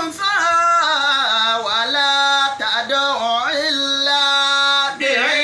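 A man's voice chanting a Quranic verse in the melodic recitation style, drawing out long held notes with slow pitch bends and ornaments.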